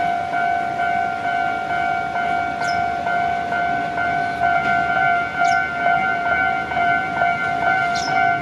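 Japanese level-crossing warning bell ringing, an electronic ding repeating steadily about twice a second.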